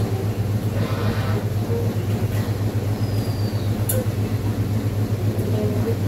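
A steady low hum, with a brief faint voice about a second in.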